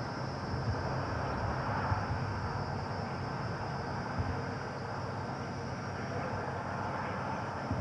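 Steady outdoor background noise: a low rumble with a constant hiss, and no distinct event.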